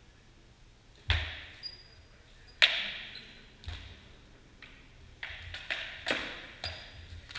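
Armoured sword-and-shield sparring: a series of about eight sharp blows striking round shields and armour, starting about a second in, the loudest a little past two and a half seconds, some with a short metallic ring.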